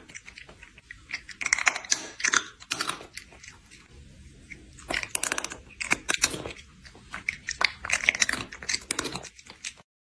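A cat chewing noisily with its mouth open: bursts of rapid wet crunching and clicking, with short pauses, that stop abruptly near the end.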